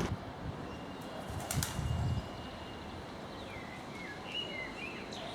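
A bird's wings flapping briefly in a short flurry, followed a couple of seconds later by a few quick chirping bird calls.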